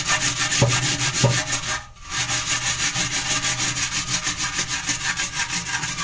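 Fast back-and-forth scrubbing on a stainless steel sink, scouring off hard-water stains. The strokes come several times a second, with a brief pause about two seconds in.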